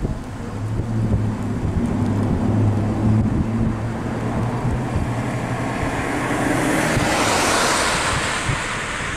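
A car passing close by: engine hum, then tyre and road noise swelling to a peak near the end and easing off. Wind buffets the microphone throughout.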